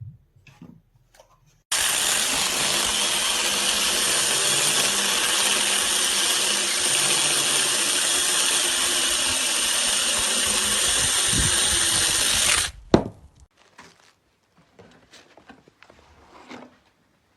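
Peektook 6-inch brushless cordless mini chainsaw running steadily for about eleven seconds, then cutting off suddenly. A single sharp knock follows just after it stops.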